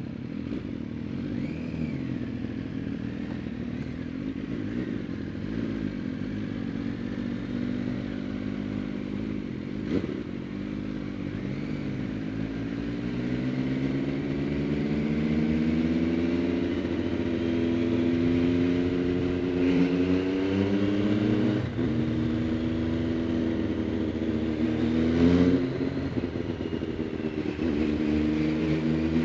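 MV Agusta Dragster 800 RR's three-cylinder engine through a Fresco Trio Corse exhaust with dB-killer, heard from the rider's seat. It runs steadily at low revs at first, then pulls harder in the second half, its pitch climbing and dropping back at several upshifts before rising again near the end.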